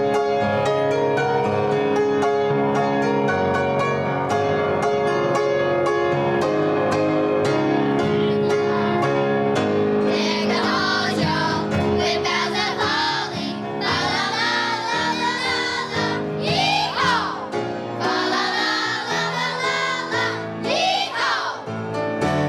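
Instrumental Christmas music, then from about halfway through a children's choir singing over the accompaniment.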